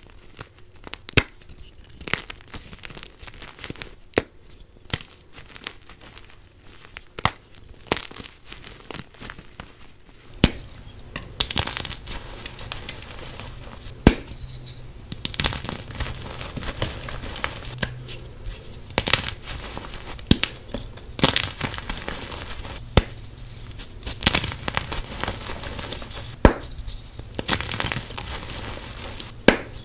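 Blocks of dyed gym chalk squeezed and crumbled by hand: dry crunching and crackling with many sharp snaps as pieces break off. About ten seconds in, the background changes to a louder hiss with a low hum as the fingers dig into and break apart fresh blocks.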